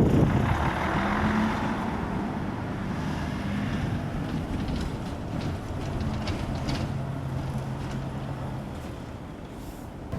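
Electric train on the Seibu Shinjuku Line running past a level crossing and fading away: a steady low hum that gradually dies down, with a few short clicks in the middle.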